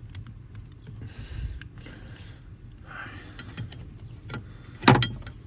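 Small clicks and rattles of hands fitting a new ignition switch and its wiring plug on a truck's steering column, with brief rustling, and one sharp louder click near the end.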